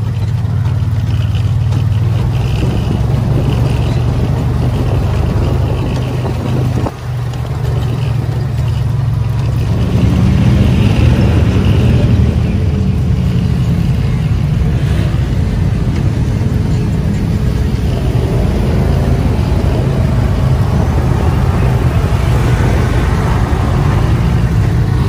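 Engine of an open off-road vehicle running steadily as it drives along a muddy track, with wind and rough-ground noise, and other trucks' engines close by. There is a short break about seven seconds in, and it runs louder from about ten seconds.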